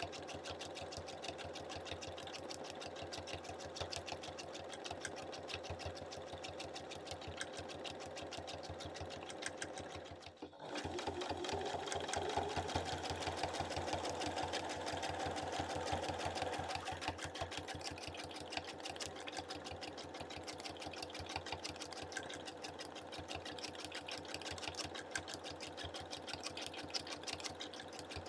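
Domestic sewing machine stitching at a fast, steady rhythm with a free-motion hopping foot, the needle going up and down continuously. It breaks off for a moment about ten seconds in, then runs on a little louder for several seconds.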